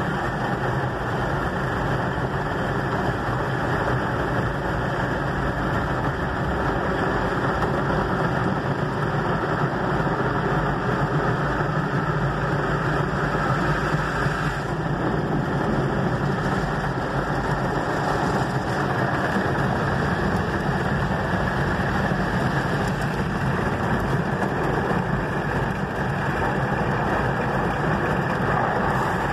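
Automatic car wash running, heard from inside the car's cabin: a steady, loud rush of machinery with water spraying over the windshield and body.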